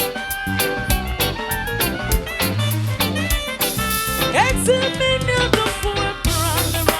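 Upbeat music with a steady drum beat, bass and melodic instrument or voice lines, some of them sliding in pitch.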